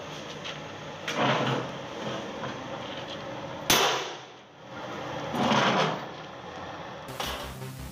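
Sledgehammer and steel truck chassis rail knocking together: four heavy metallic clanks spread over several seconds, the sharpest about halfway through.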